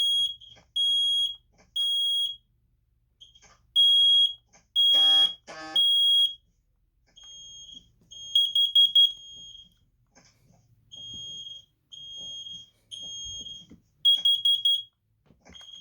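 SC9120B combination smoke and carbon monoxide alarm sounding its test, loud high-pitched beeps in groups of three: the temporal-three smoke alarm pattern. From about seven seconds in the beeps go on fainter, some with a fast fluttering pulse.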